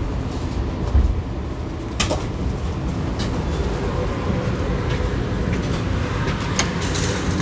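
Light-rail train running, a steady low rumble with a low thump about a second in and a few sharp clicks and knocks.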